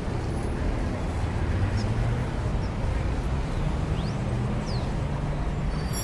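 Steady city traffic noise with a low engine hum, and two brief high squeaks about four and five seconds in.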